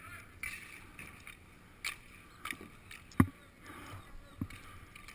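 Outdoor roller hockey game picked up by the goalie's helmet-mounted camera: a faint steady hiss with a few sharp knocks, the loudest about three seconds in.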